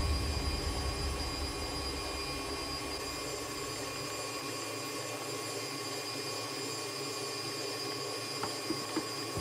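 Electric stand mixer motor running steadily with a constant whine, its flat beater churning wet pizza dough in a steel bowl. A low rumble underneath drops away about four seconds in.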